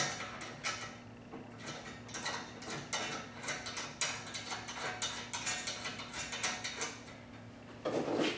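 Ratchet wrench clicking as it tightens a bolt on a steel motorcycle wheel stand, with quick irregular clicks a few times a second. A heavier clunk of metal near the end.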